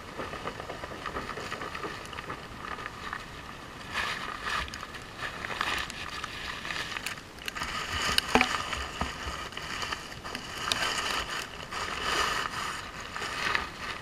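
Plastic carrier bags rustling and crinkling as they are handled and knotted, in irregular bursts that are loudest in the second half.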